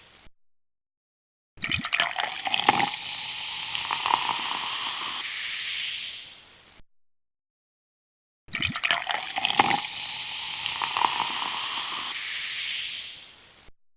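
Carbonated soft drink fizzing as it is poured, in two separate takes. Each starts with a cluster of sharp crackling pops, settles into a steady hissing fizz for about five seconds, then fades away.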